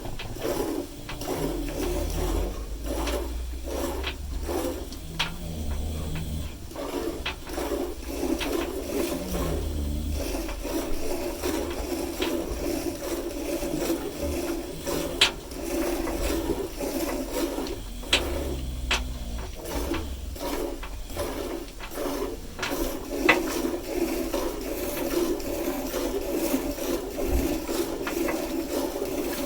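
A cow being milked by hand: repeated rasping squirts of milk into a pail. Every few seconds there is a low rumbling snore from the dozing cow.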